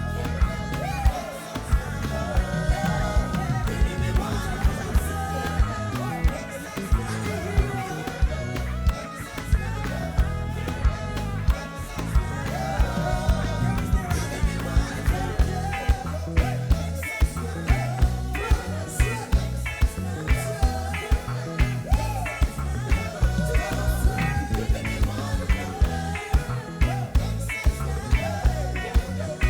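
Band playing gospel music in a reggae style: a steady drum beat with sharp hits, a strong bass line, and guitar, with a gliding melody line over them.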